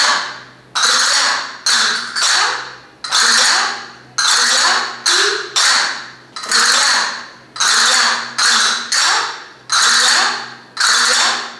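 Castanets played in a steady repeating pattern of rolls and strikes, the rolls made by scratching the fingernails across the castanet (arañando), about one or two sharp attacks a second, each fading quickly.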